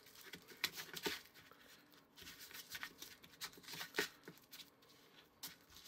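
A small spatula scraping and tapping against a plastic mixing bowl while creaming shortening and brown sugar and breaking up the sugar lumps: faint, irregular scrapes and clicks, a few louder taps.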